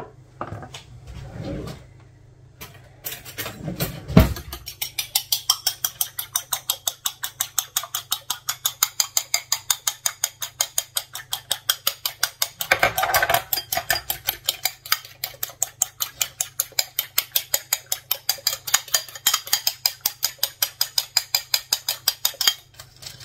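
An egg being beaten by hand in a bowl: after a sharp knock about four seconds in, a utensil clicks against the bowl in a fast, even rhythm of about five strokes a second, stopping just before the end.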